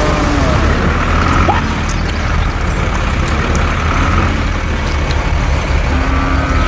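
A motor vehicle engine running with a steady low rumble, with a few short, high squeaks and chirps over it.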